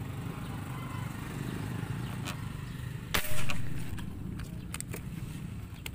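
A steady low engine hum, with one sharp, loud crack a little past three seconds in that dies away over most of a second, and a few faint clicks.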